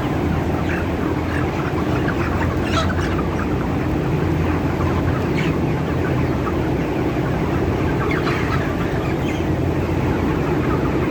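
A flock of broiler chickens in a poultry shed, many birds clucking and calling at once over a steady low hum.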